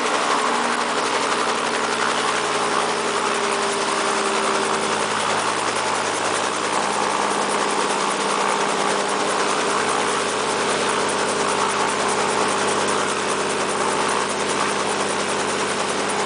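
Helicopter running steadily on the ground, an even engine and rotor noise with a few constant low tones underneath.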